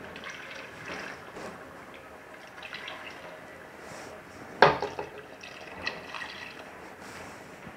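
Water poured from a plastic measuring jug into a stainless steel pot of chicken in sauce, splashing into the liquid. A single sharp knock stands out about four and a half seconds in.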